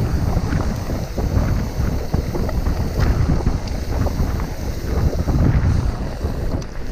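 Wind buffeting the microphone of a camera on a mountain bike riding down a dirt and gravel trail, a steady low rumble broken by frequent clicks and rattles from the tyres and bike over the bumpy ground.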